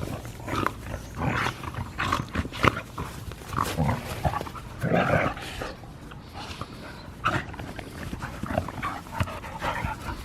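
Two dogs play-fighting, with a run of short, irregular bursts of dog noises and scuffles.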